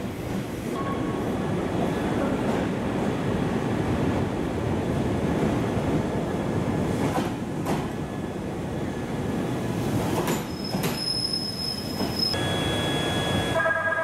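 Electric train running slowly through the station, a steady rumble with a few clacks over rail joints and a brief high wheel squeal about ten seconds in. Music starts just before the end.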